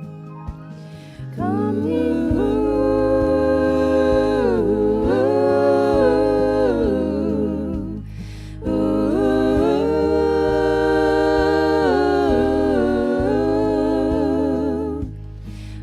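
Gospel vocal quartet humming wordlessly in close harmony over low bass notes. The singing starts about a second and a half in and pauses briefly about eight seconds in and again near the end.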